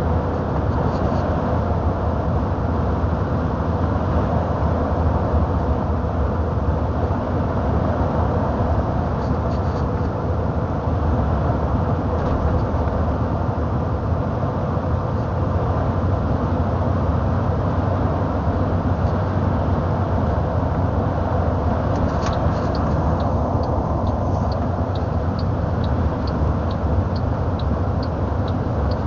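Truck engine and road noise inside the cab while driving, steady. From about two-thirds of the way in, a regular light ticking joins it, about twice a second.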